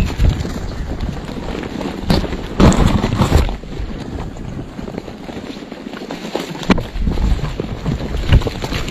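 Vultures' wings beating close to the microphone in gusts of rushing air, with scuffling and thumps as the birds land and jostle. The loudest flurry of wingbeats comes about two to three and a half seconds in.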